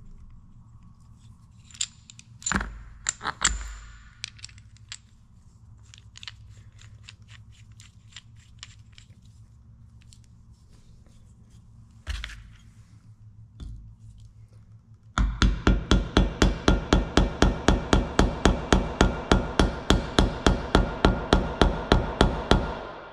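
Hammer blows driving a new oil seal into the cast-iron PTO housing of an International Harvester 1066 tractor, a fast even run of ringing metal strikes about four a second starting about fifteen seconds in. Before that, scattered clinks and a few thumps of tools and parts being handled on the bench.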